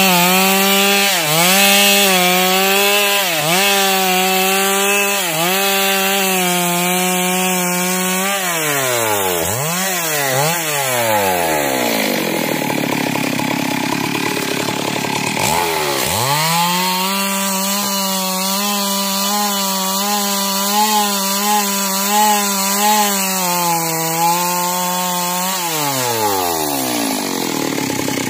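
Stihl two-stroke chainsaw ripping a log lengthwise at full throttle, the engine note dipping about once a second as the chain bites into the wood. About 8 seconds in the revs drop and rise several times, then it runs at full throttle again from about 16 seconds in, and the revs fall off near the end as the throttle is released.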